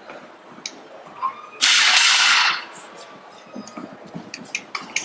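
A pair of hand cymbals crashing once about a second and a half in, loud and ringing for about a second, followed by a scatter of light knocks.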